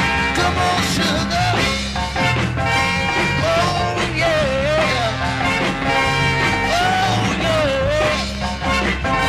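Northern soul record playing: a full band with a steady beat and a wavering melody line above it.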